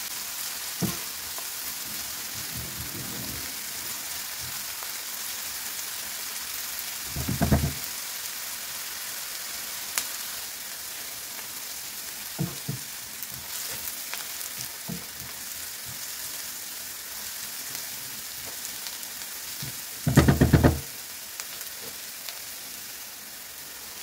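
Diced onion sizzling steadily in hot oil in a nonstick frying pan as it is stirred with a silicone spatula, sweating until soft. Small clicks of the spatula against the pan, with two louder short clattering bursts, about a third of the way in and again near the end.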